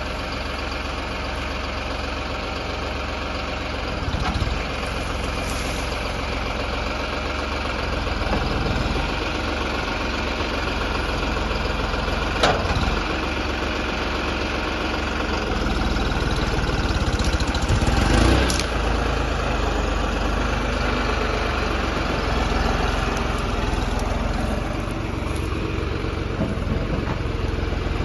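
A heavy vehicle's engine running steadily, with a few sharp knocks scattered through it, the loudest about twelve seconds in.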